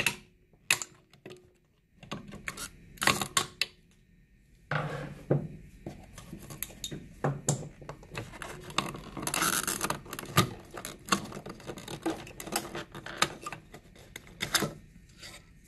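Clipped-on plastic relay housing on a small refrigerator compressor being worked loose by hand: a busy run of small clicks, taps and scraping that starts about two seconds in and gets thicker from about five seconds in.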